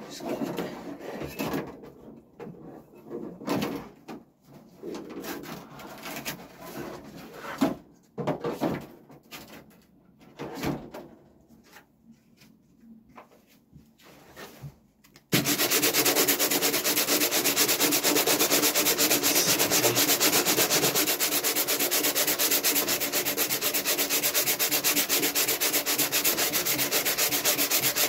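Sanding: irregular hand strokes of abrasive rubbing for about half the time, then an electric sander switches on abruptly and runs steadily at full speed.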